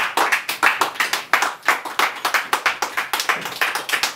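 Audience clapping by hand, quick irregular claps.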